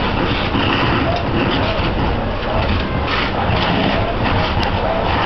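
Fire engine running steadily at a fire scene as a low, continuous rumble, with faint voices over it.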